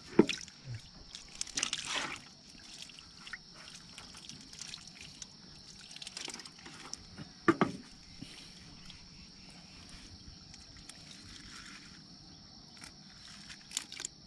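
Small fish being handled in the shallow water in the bottom of a wooden boat: splashing and trickling water as they are picked up and dropped into a plastic bucket. Two sharper knocks, just after the start and about halfway through, are the loudest sounds.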